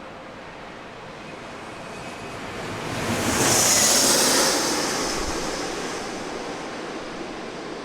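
Jet airliner passing close by: its engine noise swells, peaks with a hissing whoosh about four seconds in, then slowly fades as it moves away.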